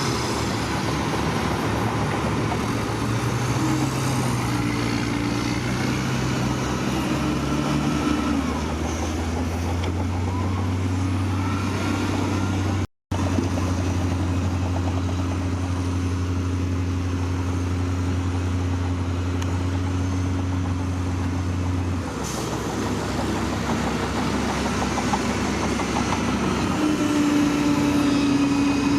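Heavy diesel engines of earthmoving machinery running steadily, with the engine note shifting about eight seconds in and again near the end. The sound cuts out for a moment about halfway through.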